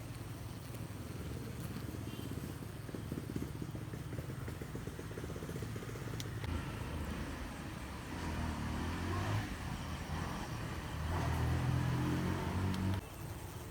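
Bees buzzing: a steady low hum with a louder, wavering buzz in the second half as bees come close, cutting off abruptly near the end.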